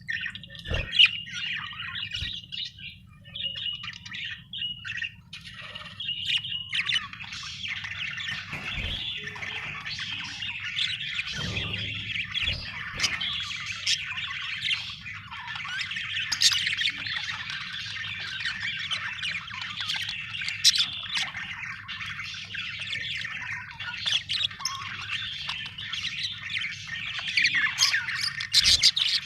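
Budgerigars chirping and chattering: scattered calls at first, then from about seven seconds in a dense, continuous warble of several birds. A low steady hum runs underneath, with a few low thumps.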